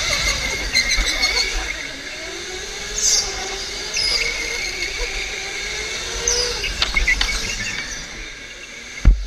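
OTL electric go-kart motor whining, its pitch rising and falling with speed, with short tyre squeals as the kart corners. A sharp thump near the end is the loudest sound.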